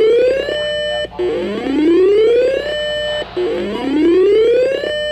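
Electronic emergency-alert alarm: rising whoops, about one every two seconds, each sweeping up in pitch and ending in a brief steady tone before a short gap. It marks an Emergency Alert System warning about to be read.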